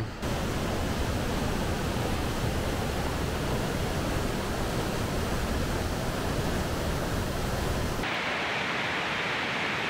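Steady rushing of white-water river rapids over rocks. About eight seconds in it cuts abruptly to a thinner, higher hiss without the deep rumble.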